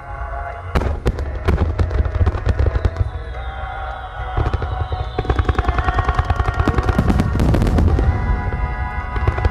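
A fireworks barrage: many shells firing and bursting in quick succession, with the bangs thickening into a dense rapid crackle from about halfway. Music plays throughout.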